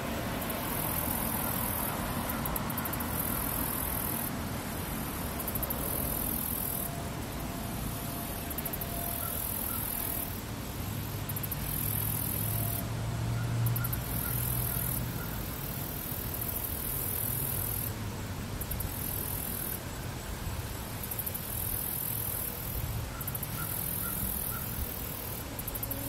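Meadow insects trilling in very high-pitched bursts that start and stop every second or two, over a steady low rumble.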